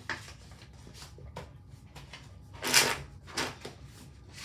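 Oracle cards being shuffled and handled: a few soft rustles, with a louder rustle of cards about two and a half seconds in and a shorter one just after.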